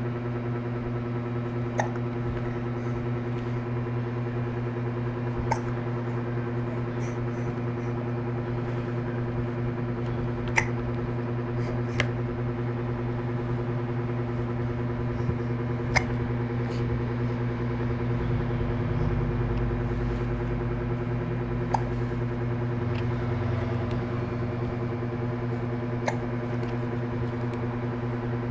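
A baby hiccuping: about eight short, sudden hics at irregular gaps of a few seconds, without crying, over a steady hum.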